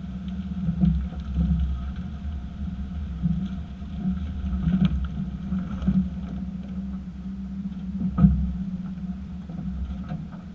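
Low steady running and road rumble of a 2018 Chevy Silverado pickup, broken by several sharp clunks from the rear end, the loudest about eight seconds in: the clunking fault the truck has at one year old.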